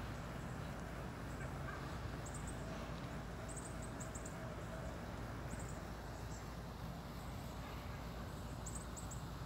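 Quiet outdoor ambience: a low steady rumble with short clusters of high chirps every second or two, and other dogs barking in the distance.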